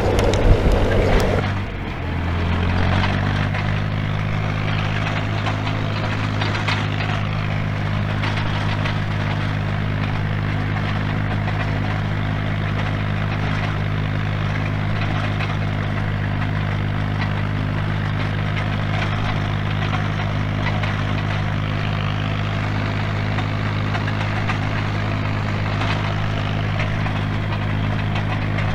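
International 500C crawler dozer's diesel engine running steadily under load while pushing snow. About two seconds in, the engine note dips and then climbs back up.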